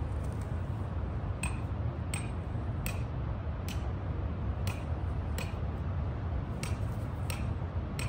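Light hammer taps on stone, about one a second, each a sharp click with a short metallic ring, over a low steady rumble.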